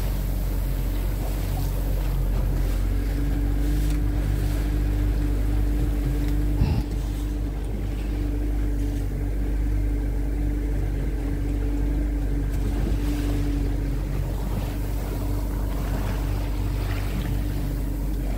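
Motorboat engine running steadily while the boat is under way, with a single thump about seven seconds in.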